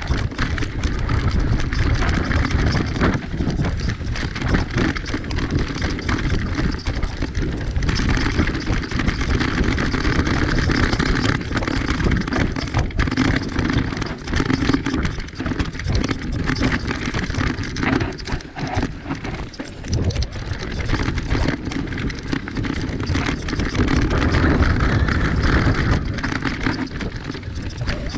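Mountain bike rolling fast down a dirt singletrack: knobbly tyres on dirt and stones, with frequent rattles and knocks from the bike over bumps and a steady rush of air on the microphone.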